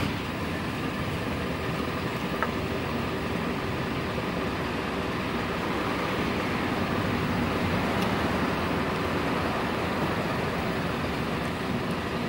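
Steady rumble of road traffic, an even wash of noise with no single event standing out.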